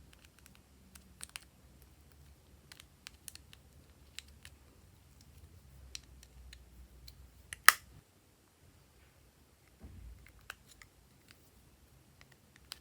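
Slime being worked by hand, giving scattered small clicks and pops of trapped air, with one much louder pop a little over halfway through.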